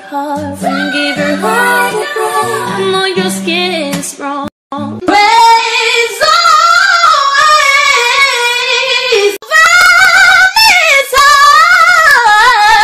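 Female mezzo-soprano voice singing high notes, stepping up through about G5, G#5 and A5 in three short excerpts spliced together with abrupt cuts. The first excerpt has musical backing underneath. The later ones are high sustained notes sung with vibrato.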